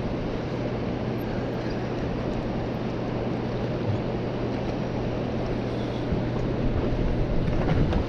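Steady rushing roar of turbulent water below a hydroelectric dam, with a steady low hum beneath it. The sound grows a little louder and more uneven near the end.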